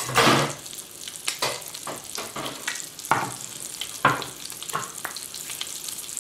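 Floured cod fillet frying in foaming butter and olive oil in a pan: a steady sizzle with irregular crackles and spits, a louder burst just after the start.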